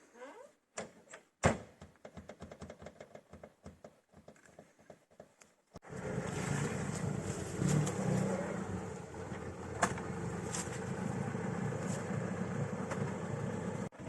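A single knock, then a run of light clicks, and about six seconds in a car engine starts up and keeps running steadily.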